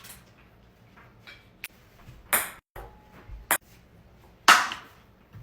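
A light ball thrown at a cup, clicking sharply off hard surfaces a couple of times, with a few short bursts of noise in between; the loudest burst comes about four and a half seconds in.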